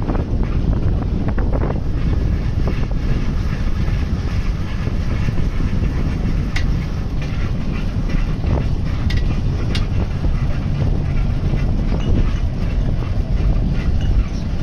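Wind buffeting the microphone of a moving bicycle as a steady low rumble, with road and tyre noise underneath and a few light clicks or rattles from the bike.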